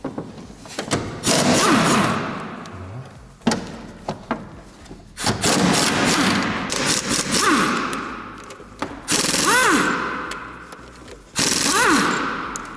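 Pneumatic impact wrench hammering bolts loose from an engine mount, in four bursts that each start sharply and fade over two to three seconds, the pitch sliding up and down as it spins.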